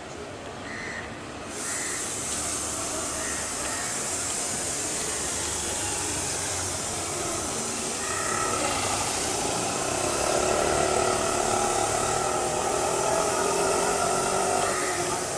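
Steady hiss of background noise, which gets louder about a second and a half in and again around eight seconds in.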